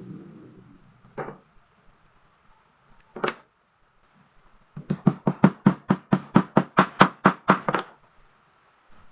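Hammer knocking on the wooden parts of a chair frame during assembly: two single knocks, then a quick, even run of about eighteen strikes, roughly six a second.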